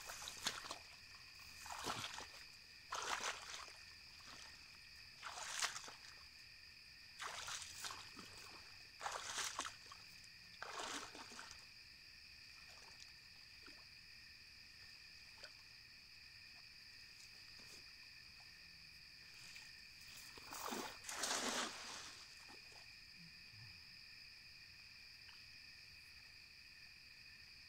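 Night insects trilling steadily in two high tones, with short rustling noises at irregular intervals; the longest and loudest comes about three quarters of the way through.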